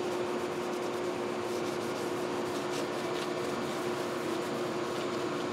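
A red Scotch-Brite pad wet with water and degreaser rubbing over painted engine-bay sheet metal, scrubbing out embedded oil stains. A steady mechanical hum runs underneath.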